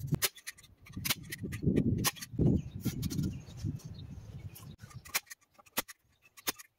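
Chicken wire being handled and rattled against a wooden fence post, a scatter of sharp clicks over low rustling, with a few louder clacks from a manual staple gun fastening the mesh near the end.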